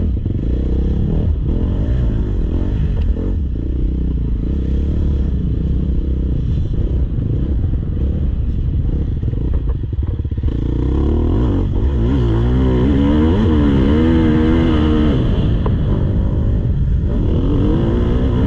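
Motocross bike engine being ridden hard, the pitch rising and falling as it revs on and off the throttle, with clattering and a steady low rumble. From about halfway through it gets louder and the revs swing up and down quickly.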